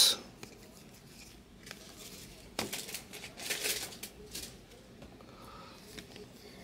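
A stack of 2022 Bowman Chrome baseball cards being handled and flipped through: light rustles and a few short sliding scrapes as cards are pushed off the stack, loudest about two and a half to four seconds in.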